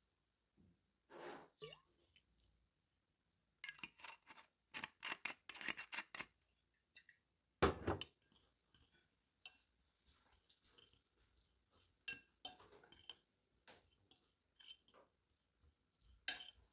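A metal fork clinking and scraping against a glass bowl while mashing and mixing flaked canned tuna, in quick runs of light clicks. One louder knock about eight seconds in.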